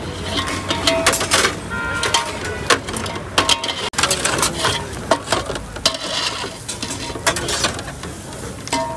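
Metal kebab skewers clinking and clattering against one another and the grill as they are handled over the charcoal, a quick irregular run of sharp metallic clicks and knocks over a steady background hiss.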